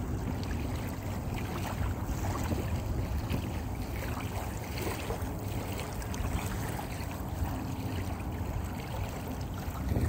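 Small river waves lapping and splashing, under a steady low rumble of wind on the microphone.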